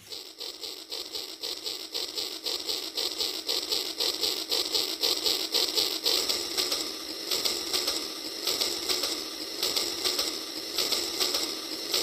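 Rail King remote-control toy train running along plastic track, a steady rhythmic clicking and rattling of its small geared motor and wheels at several clicks a second.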